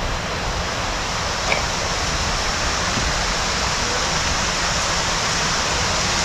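A steady, even rushing noise with no pitch to it, with one small click about a second and a half in.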